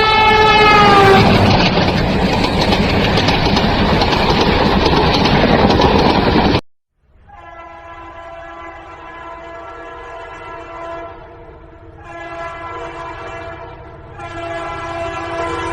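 Indian Railways train horn blast that drops in pitch and stops about a second in, followed by the loud rumble and clatter of a passing train. After a sudden cut, another train horn sounds in long, quieter blasts, starting again twice near the end.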